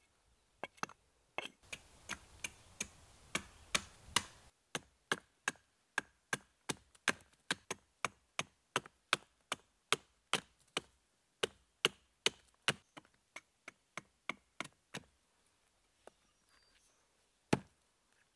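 Hatchet blade striking a wooden blank in quick, even chops, about two or three a second, hewing and splitting a thin board for a carving blank. The chopping stops a few seconds before the end, followed by one louder knock of wood on wood.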